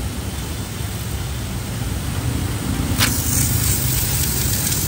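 Small 0.75 kW single-phase electric pressure washer with a twin ceramic-plunger pump running under load, its high-pressure water jet spraying with a steady hiss over the motor's hum. About three seconds in, the hiss grows louder and brighter.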